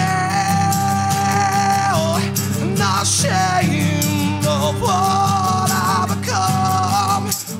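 Live acoustic rock band playing: two acoustic guitars strummed under a man singing long, drawn-out notes.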